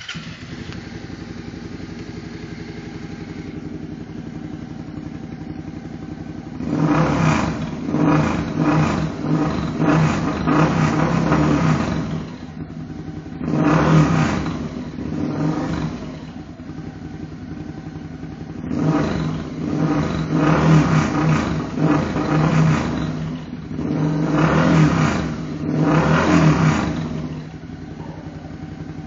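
Suzuki SFV650 Gladius 645 cc V-twin, just started, idling through a decat pipe and Leo Vince GP Pro slip-on exhaust. Then it is revved in a series of quick throttle blips in several clusters, dropping back to idle between them and again near the end.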